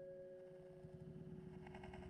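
Very faint sound: a steady tone dies away in the first second, then the low rumble of distant traffic on the toll road comes in.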